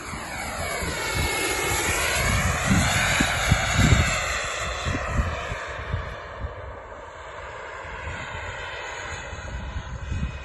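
Xicoy X45 model jet turbine whining as the RC Blaník glider flies past. The pitch of the whine slides as it passes, it is loudest about three to four seconds in, and then it fades as the model climbs away. Gusts of wind rumble on the microphone.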